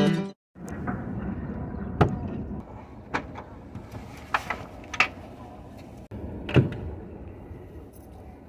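A steady low rumble with five short, sharp knocks spread through it, the loudest about six and a half seconds in.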